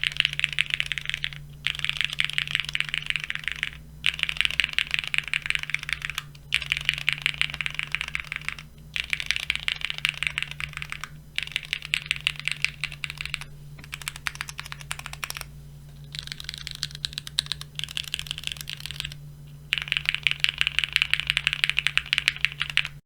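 Fast typing on a plateless, foamless, gasket-mounted Neo70 mechanical keyboard with linear Cherry MX Red switches and Cherry-profile keycaps: dense runs of keystroke clacks, broken by brief pauses every two or three seconds. A steady low hum sits underneath.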